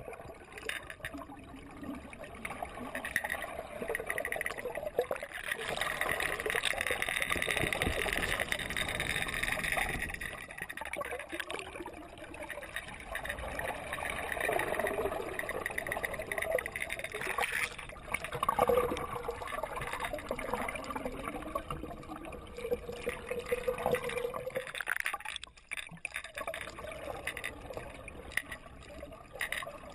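Water heard from below the surface of a swimming pool: a steady rush of water with gurgling that swells and fades irregularly.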